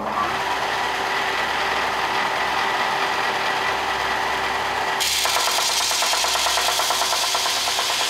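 A 1/3 hp benchtop belt sander is switched on and runs steadily. About five seconds in, a brass plate is pressed against the sanding belt, adding a harsh, bright hiss of metal being abraded and a fast, regular ticking. The sander is grinding the burrs off the brass to give it a brushed finish.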